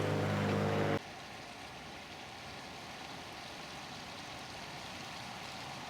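Floodwater of the River Swale rushing, a steady hiss-like rush of water. For the first second an engine hums at a steady pitch over it, then cuts off suddenly.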